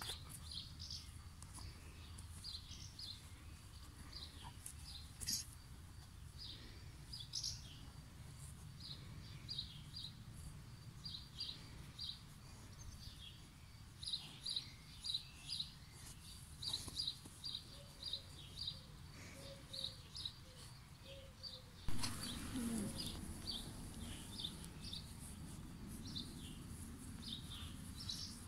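Small birds chirping in short, high, repeated calls over a steady low background rumble; about two-thirds of the way through the background gets louder.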